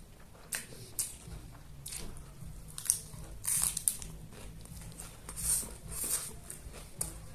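A person biting and chewing food close to the microphone, in irregular short bursts every half second to a second.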